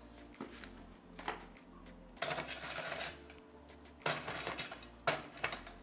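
A metal cooking pot with a glass lid handled on a burner: a few short bursts of clatter and rattle from the pot and lid.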